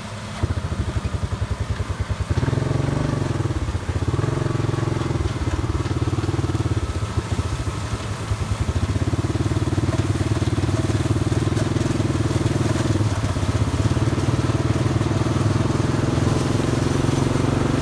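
Combine harvester engine running with a fast, even chugging; it gets louder about half a second in and heavier from about two and a half seconds in.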